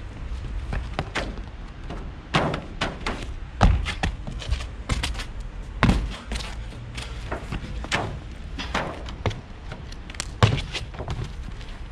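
Sneakered feet running, pushing off and landing on a flat rooftop's roofing membrane: a run of quick footsteps broken by heavier thuds of landings from flips, the loudest about four seconds in, about six seconds in, and near the end.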